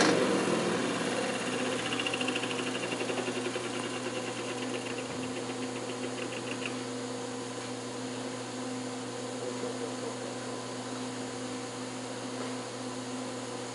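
Old Magnetek electric fan motor running on bad bearings: a mechanical rattle and hum that fades over the first several seconds, the fine rattle dying out about halfway through and leaving a steady, quieter hum.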